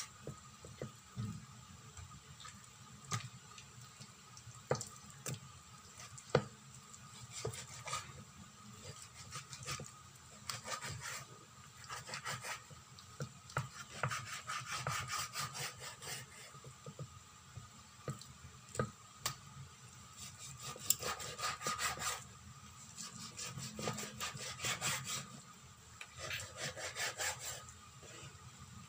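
Large kitchen knife sawing back and forth through raw beef spare ribs on a wooden chopping board, in spells of rapid strokes a second or two long. Single knocks sound in between.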